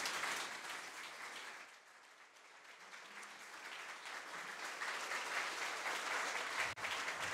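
Audience applauding at the end of a speech. The clapping thins out about two seconds in, then swells again.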